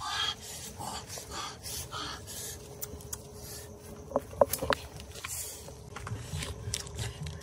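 Handling noises while a boiled pig's head is laid out and cut on banana leaves. There is a short rustling burst at the start, three sharp clicks a little past halfway, and soft low thuds near the end.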